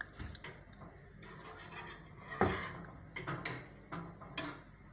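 A few scattered light knocks and clicks, the loudest about halfway through, with smaller ones near the end, like a dish or plate being handled on a counter.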